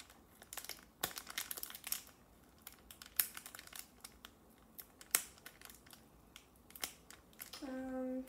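Foil booster-pack wrapper crinkling and crackling in irregular sharp bursts as it is pulled and worked at to tear it open. Near the end there is a short hummed voice sound.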